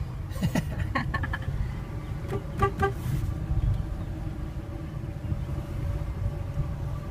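Fiat Panda's horn beeping in short toots, with two quick beeps about two and a half seconds in, over the steady low rumble of the car driving, heard from inside the car. The horn warns any oncoming car on the single-lane road.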